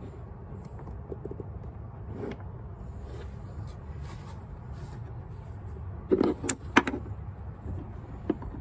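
Frunk cargo net's clips being worked into their mounts, with light handling noise and a quick cluster of sharp clicks about six seconds in as they go in. A steady low rumble runs underneath.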